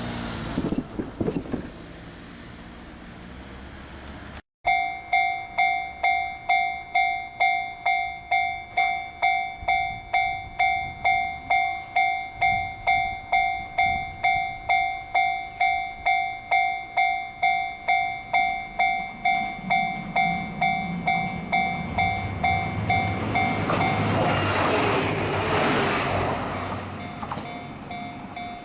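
Level crossing warning bell ringing steadily, about two strikes a second, while a train approaches with a rising rumble and passes loudly about twenty-four seconds in, nearly drowning the bell. Before the bell starts, a road vehicle passes briefly.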